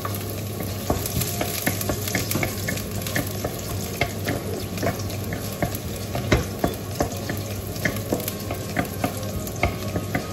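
Chopped garlic sizzling in hot oil in a nonstick wok while a wooden spatula stirs it, knocking against the pan with many short clicks.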